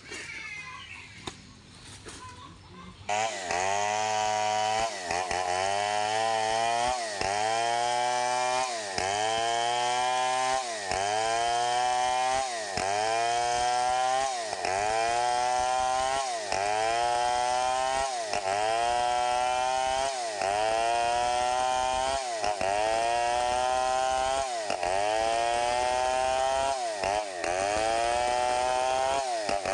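Stihl 070 chainsaw, a large two-stroke, ripping lengthwise along a log. It comes in loud about three seconds in, and its engine pitch dips and climbs back over and over, about every second and a half or more, as the chain is worked through the cut.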